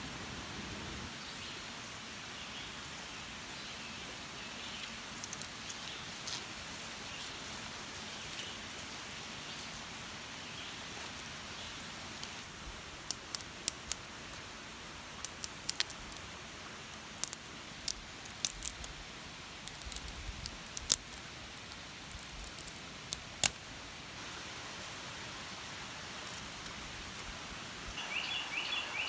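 Forest ambience with a steady hiss and faint chirps, broken by a run of irregular sharp clicks over about ten seconds in the middle, and a short chirping bird call near the end.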